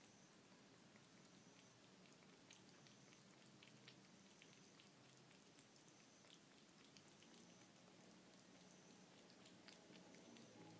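Faint, irregular wet clicks of a cat lapping and chewing soupy tuna cat food from a dish.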